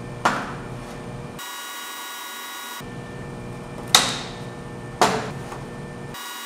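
Three sharp metal-on-metal strikes on a freshly welded steel pipe-and-bar piece, each followed by a brief ring of the steel: one just after the start, then two about a second apart near the four- and five-second marks, the first of those two the loudest.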